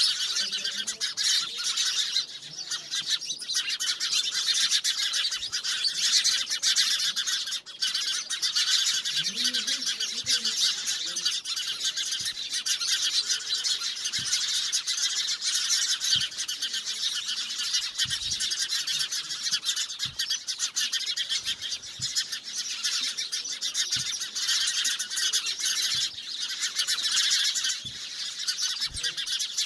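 A dense, continuous chorus of many birds chirping and twittering, high-pitched and unbroken, with a few faint lower calls now and then.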